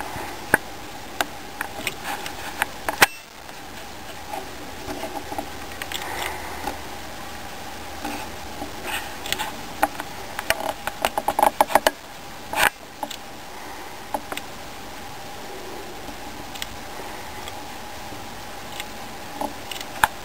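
Ground squirrel nibbling and chewing a piece of food held in its paws: quick small crunching clicks, with a fast run of them about two-thirds of the way through and a couple of louder sharp clicks. A steady faint hum lies underneath.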